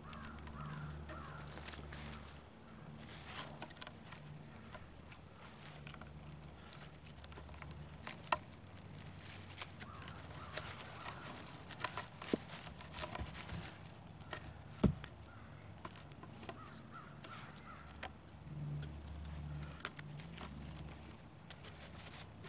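Cord being wrapped and pulled tight around pine poles to lash a bushcraft sawhorse, with scattered small knocks and rubs of wood and one sharp knock about two-thirds of the way through. Cawing birds call in the background.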